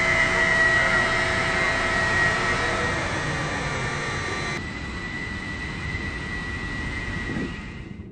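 Hoist machinery of an STS container crane's machine room, with electric drive motors and gearboxes turning the large wire-rope drums, running with a steady whine over a mechanical hum. About halfway through, the higher whine drops away abruptly and it gets quieter, then it fades out near the end.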